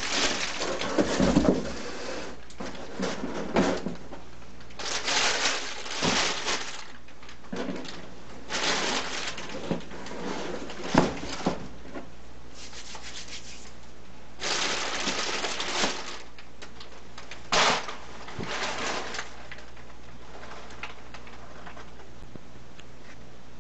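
Handling noise from unpacking: repeated short bouts of rustling and rubbing of packaging, with a few sharp knocks in between, settling down near the end.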